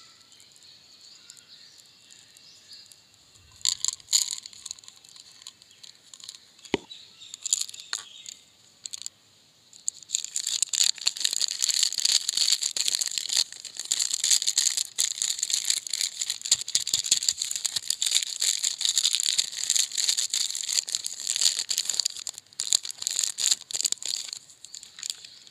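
Cadbury Dairy Milk chocolate bar wrapper crinkling and crackling as it is handled, a dense steady run of crackles from about ten seconds in. Before that there are only a few brief rustles and clicks.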